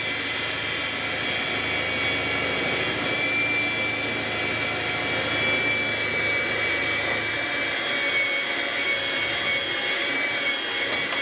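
Electric hand mixer running steadily, its beaters churning brownie batter in a glass bowl, with a thin high whine over the motor's hiss.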